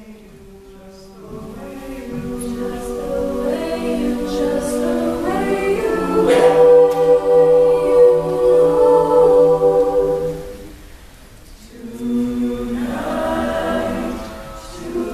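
Mixed-voice high-school choir singing a slow jazz ballad. It starts soft and swells to its fullest, held chord around the middle, then breaks off briefly about two-thirds through before the voices come back in.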